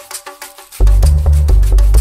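Electronic theme music with a quick beat of clicky, wood-block-like percussion. A deep bass line drops out at first and comes back in just under a second in.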